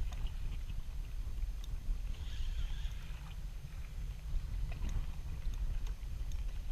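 Wind buffeting the microphone on a small boat at sea, a steady low rumble, with a brief higher hiss about two seconds in.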